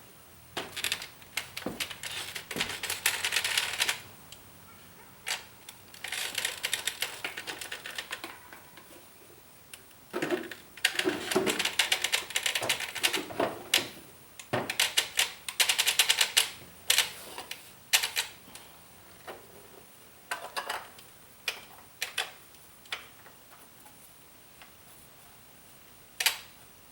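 Ratchet wrench clicking in several quick bursts of one to three seconds each, with scattered single clicks between them.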